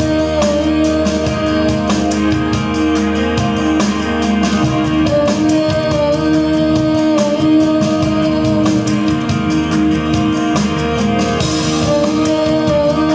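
Recorded music played for a mime dance: a song with a sung vocal over held chords and a steady beat.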